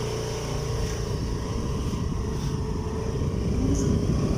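Motorbike running, with a dense low rumble of wind on the microphone.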